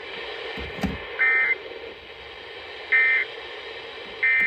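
Emergency Alert System end-of-message data bursts: three short, harsh digital tone bursts, each about a third of a second long and a second or so apart, sent to close the weather warning. A low thump comes just before the first burst.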